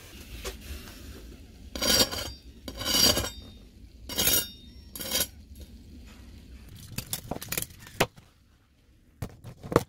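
A knife cutting through crispy-skinned pork belly on a plastic cutting board: several separate crunching strokes, then a run of short sharp clicks near the end.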